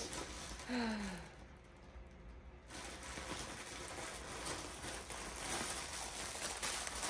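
Faint rustling and crinkling of packaging being handled, starting about three seconds in, with a brief murmur about a second in.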